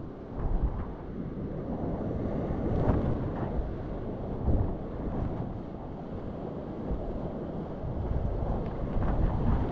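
Flooded glacial meltwater river rushing through rapids around a whitewater kayak: a deep, steady rush of churning water, with a few brief louder splashes as paddle strokes and waves hit the boat, and wind buffeting the camera's microphone.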